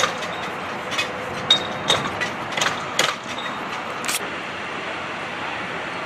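Hand tools clinking and knocking against an F-35 landing-gear wheel during a tire change: about eight sharp clinks in the first four seconds, a couple with a short ring, over a steady background hiss.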